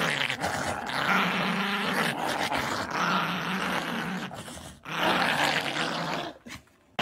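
Small fluffy dog growling in play while biting and tugging at an object in a person's hand: long rough growls with a short break about four and a half seconds in, dying away near the end.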